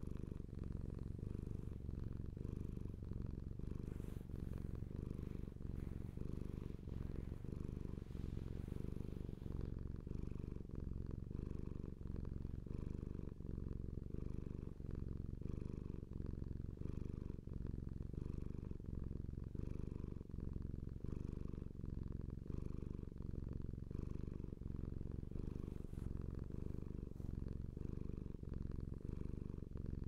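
A tabby domestic cat purring steadily, a continuous low purr.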